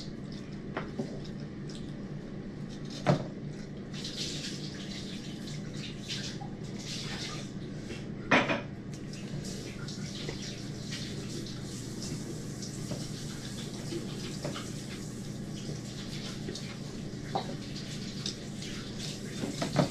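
Eating and dish sounds at a shared meal: hands picking at food on plates, with small clatters and two sharper knocks about three and eight seconds in, over a steady low hum.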